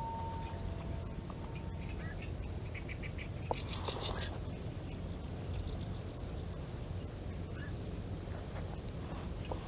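Outdoor pond-side ambience: a steady low rumble, with a few brief bird calls, one of them about four seconds in.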